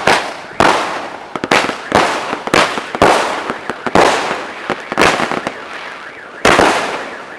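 Fireworks going off in a string of sharp bangs, roughly one a second, each trailing off before the next, with a pause of about a second and a half before a last bang near the end.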